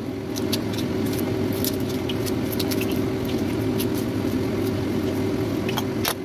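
Dry red onion skin crackling in short, irregular clicks as it is peeled off by hand, over a steady low hum.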